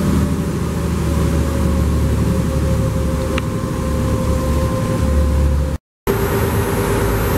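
Seakeeper 16 gyrostabilizer running with a deep steady hum and a whine that slowly drops in pitch as its flywheel spins down. Near the end the sound cuts out for a moment and returns with a lower, steady whine.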